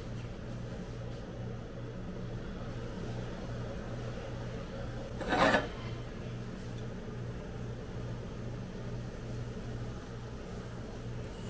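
A steady low machine hum with a pulsing tone. About five and a half seconds in there is one short, loud scraping sound.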